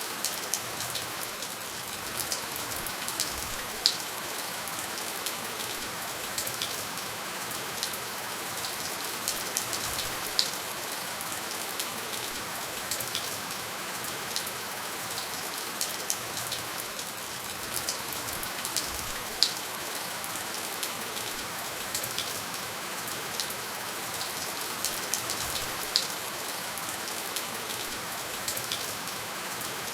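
Steady rainfall: an even hiss of rain with single drops ticking sharply here and there, and no thunder.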